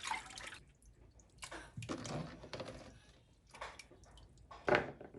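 Water splashing and dripping in several short, irregular bursts, like food being rinsed by hand in water.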